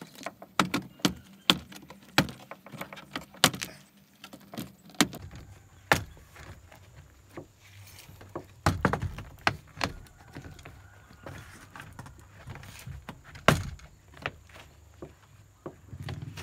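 Plastic car door trim panel being pulled off the door by hand: a string of irregular sharp clicks and knocks as its retaining clips pop loose and the panel rattles, the loudest about thirteen seconds in.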